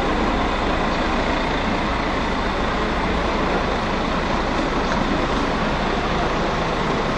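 Steady city traffic noise, an even wash of road noise with no single vehicle standing out.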